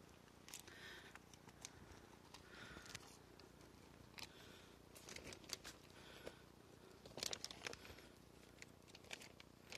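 Near silence broken by faint, scattered crunches and crinkles from hikers walking: footsteps on a dry, leaf-strewn dirt trail and a plastic bag carried close by. The crunches come in small clusters, about half a second in, near three seconds, around five seconds and about seven seconds in.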